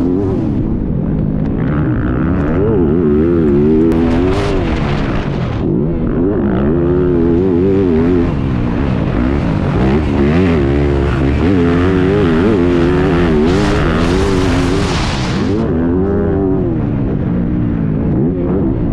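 Motocross bike engine heard from on the bike itself, its revs rising and falling every second or two as the rider races through the turns and straights, with a steady rush of wind across the microphone.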